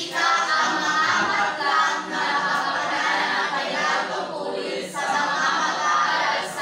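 A class of students' voices in unison, many people reciting aloud together, with brief pauses between phrases.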